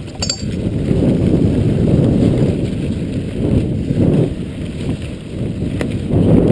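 Jamis mountain bike riding fast over a bumpy dirt singletrack: a steady low rumble of wind buffeting the camera microphone and tyres and frame rattling over the ground, swelling and easing with the bumps, with a few sharp clicks of the bike's parts.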